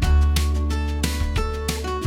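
Background music: an acoustic guitar track with a steady bass and beat.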